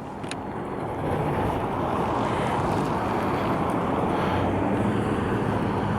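A motor vehicle running close by: a steady rushing noise with a low engine hum, building over the first second and then holding.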